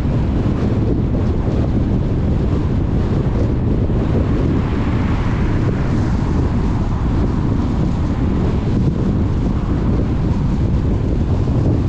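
Steady low rumble of wind and road noise from a car being driven, with no engine note or other events standing out.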